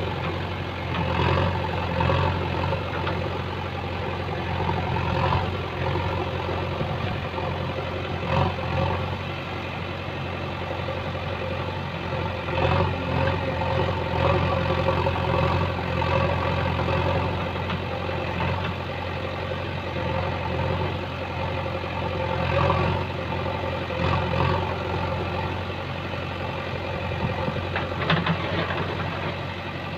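JCB backhoe loader's diesel engine running steadily, swelling in level every few seconds as the backhoe arm digs. A few sharp knocks near the end.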